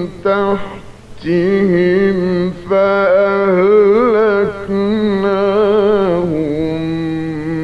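A solo male voice recites the Quran in the melodic Egyptian tajweed style, holding long, ornamented notes with a wavering pitch. There is a short break about a second in.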